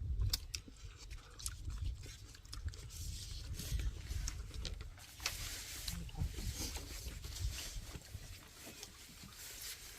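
People eating spicy beef soup (yukgaejang): slurping and chewing, with a few sharp spoon clicks.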